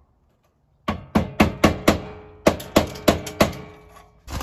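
Hammer striking a flat-head screwdriver to punch out a knockout in a metal electrical panel box: about nine sharp metallic taps, each with a short ring, in two quick runs, starting about a second in.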